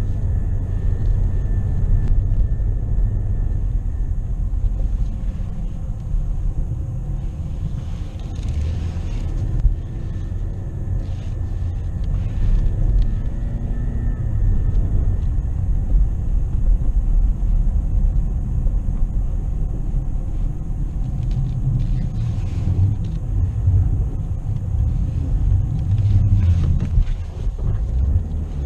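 Car driving slowly along a snow-covered road: a steady low rumble of engine and tyre noise.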